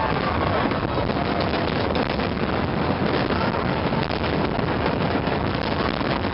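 Wind buffeting the microphone: a steady, dense rushing and rumbling noise with no clear pitch, over the outdoor din of the fireworks night.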